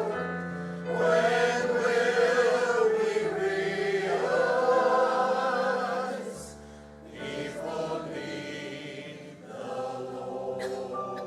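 Voices singing a slow gospel song over instrumental accompaniment. The singing drops away about six seconds in, and the music carries on more quietly.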